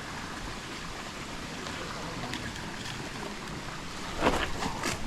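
Sea surf washing against a rocky shore with wind buffeting the microphone, and a louder rush about four seconds in.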